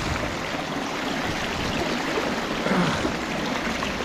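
Steady rush of a fast, shallow river current running over rocks along the bank, with some surface splashing.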